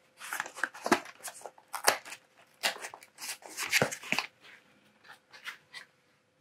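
Handling noises of a small cardboard accessories box being put back into a PC case: a string of short irregular rustles, scrapes and light clicks, thinning out near the end.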